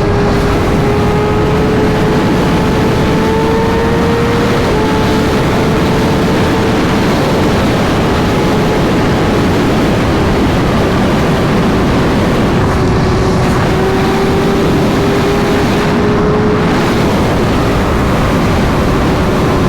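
Sport bike engine running at steady high revs at highway speed, its pitch dipping slightly a few times, under loud rushing wind noise.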